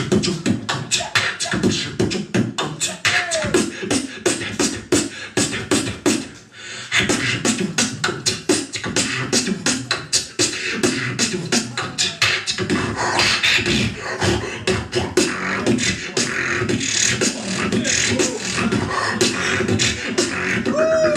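Beatboxer performing a fast, steady rhythm of mouth-made drum sounds: sharp clicks and hisses over low thumps. There is a brief break about six seconds in, then the beat carries on.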